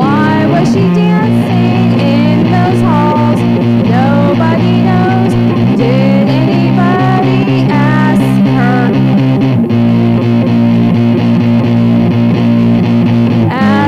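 Rock music: an electric guitar plays a lead line full of bent and sliding notes over steady held chords, with a brief break just before the end.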